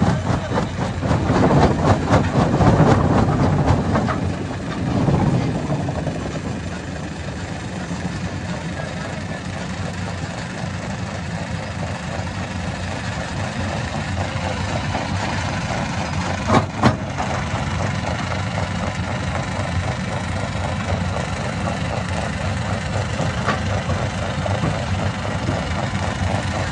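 Hammer-type stone crusher running. It is loud and uneven for the first few seconds, then settles to a steady machine drone, with one sharp bang about sixteen seconds in.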